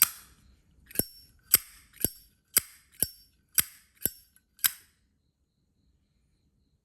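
Brass Zippo lighter clicking nine times in a steady run, about two a second, each click with a short metallic ring. The clicks stop a little before the end.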